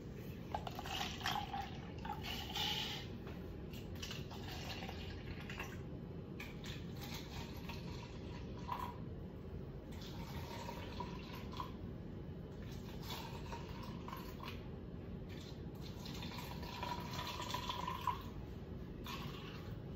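Cooled red cabbage water being poured from a glass measuring cup into cups, trickling and splashing in several separate pours.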